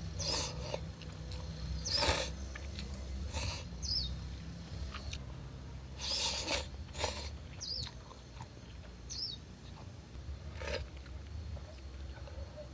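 Scattered short rustles and clatters, about seven in all, with a few brief high chirps in between, over a low steady hum.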